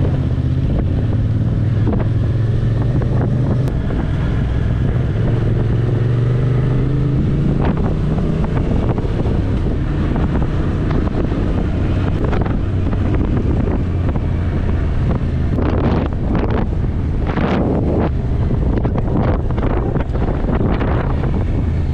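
Motorcycle engine running under way, with wind rushing over the microphone. The engine note climbs about six seconds in, and the wind rush grows rougher in the second half.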